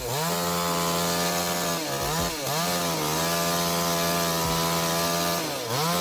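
Chainsaw running at high revs, its pitch climbing as it opens up at the start, then dipping briefly and recovering about two seconds in and again near the end.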